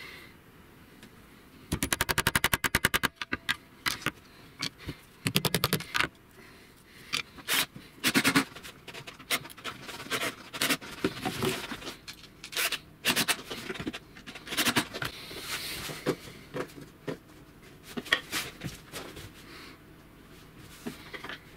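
Cordless drill-driver driving screws into a laminated plywood table frame: a rapid run of clicks about two seconds in and another burst around five seconds, then scattered clicks and knocks as the screws and metal parts are handled.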